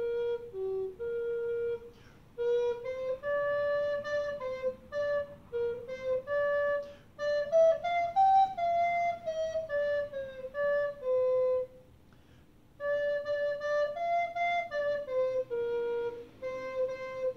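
Wooden recorder playing a melody one note at a time, breaking off briefly between phrases about two seconds in and again about twelve seconds in.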